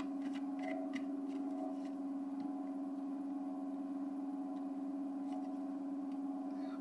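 A steady low drone: one sustained tone with overtones, holding level without change. A few faint clicks sound in the first two seconds.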